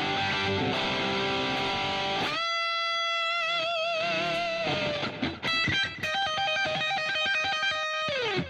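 Ibanez RGAT62 electric guitar played through a Boss Katana 100 212 combo amp on its boosted lead patch with delay. It plays an overdriven lead: chordal playing, then a long sustained note with vibrato, a quick run of short notes, and a held note that slides down in pitch near the end.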